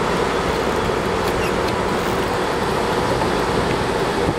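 Steady rumble of a fishing boat's engine running, with water noise mixed in.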